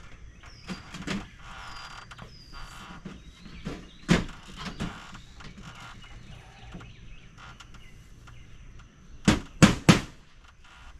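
A few scattered sharp knocks and taps, then three loud strikes in quick succession near the end.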